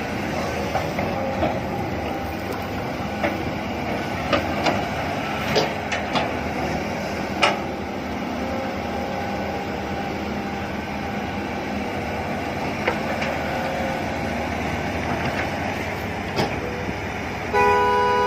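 Wheeled excavator's engine and hydraulics running steadily while digging and loading soil, with scattered sharp knocks from the bucket and boom. Near the end a vehicle horn sounds once for about a second, louder than the machine.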